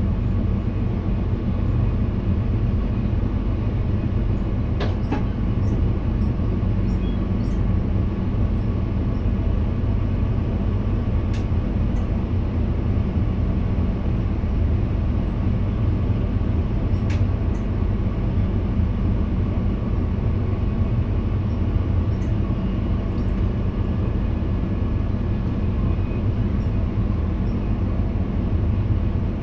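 Steady running noise in the driver's cab of an NS VIRM double-deck electric train under way: an even low rumble of wheels on rail with a steady hum, and a few faint clicks.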